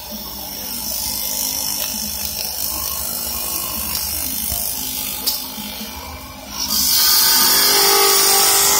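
CNC wood lathe cutting a spinning wooden blank: a steady machine hum under the hiss of the cutter shaving wood, which grows much louder and brighter about two-thirds of the way through.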